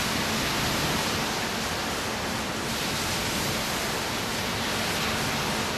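Small ocean surf washing onto the beach: a steady rushing hiss that swells slightly now and then.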